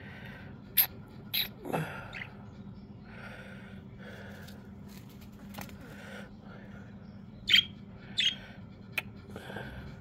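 Budgerigar chirping: about half a dozen short, sharp squeaks, in a cluster near the start and another toward the end, with softer chatter between.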